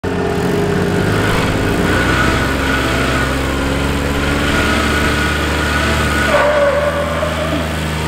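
Small utility-vehicle engine running steadily at low speed, its pitch shifting slightly about six seconds in.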